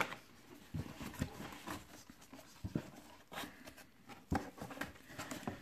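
Cardboard model-car box being opened by gloved hands: scattered light scrapes, taps and rustles of cardboard sliding and flaps being handled.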